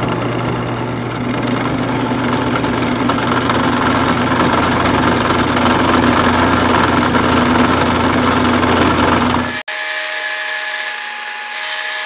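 Drill press running an end mill through a small metal part as the vise is fed in: a steady motor hum under a dense cutting noise. About nine and a half seconds in it cuts off abruptly, leaving a quieter steady whine.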